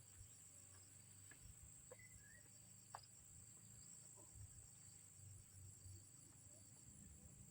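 Faint, steady high-pitched insect chirring, like crickets, with a low background rumble and a few soft clicks, one sharper click about three seconds in.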